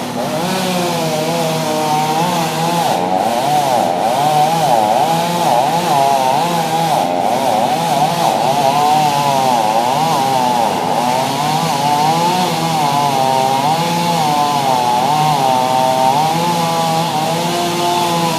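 Chainsaw cutting through the base of a dead tree, its engine pitch rising and dipping as the chain loads and frees in the trunk.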